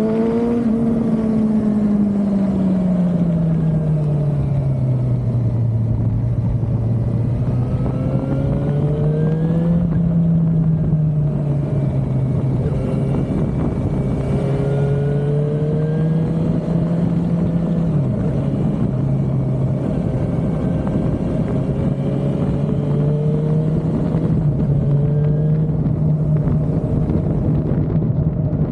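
Suzuki motorcycle engine under way, its note swelling and easing with the throttle, with a sudden step down in pitch about two-thirds of the way through, over a steady rush of wind and road noise.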